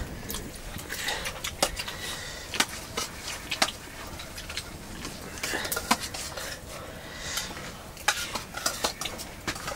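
Metal pots, plates and utensils clinking and scraping against each other, with irregular sharp knocks and clinks.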